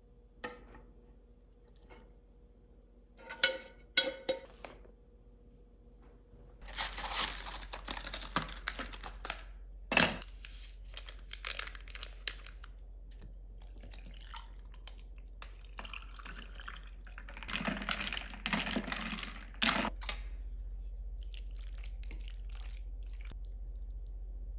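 Kitchen sounds: a few sharp clicks and knocks of handled kitchenware, with two spells of running water, as at a sink.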